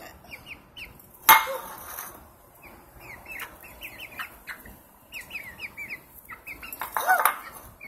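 Young hens chirping and clucking softly as they feed, a run of short, high, falling peeps, with a single sharp knock about a second in and a louder call near the end.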